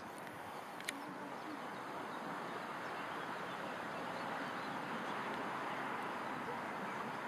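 Steady, even running noise of an inclined-plane boat lift's caisson travelling on its rails, slowly growing a little louder, with a sharp click just under a second in.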